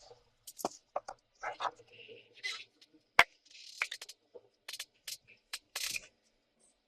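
Scattered clicks, taps and rustling of equipment being handled, with one sharp click about three seconds in.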